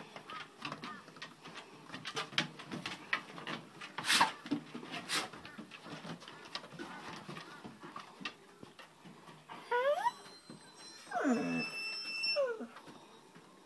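Black Great Dane whining twice near the end: a short whine, then a longer one that falls in pitch. Before that, scattered light clicks and taps, with a sharper, louder click about four seconds in.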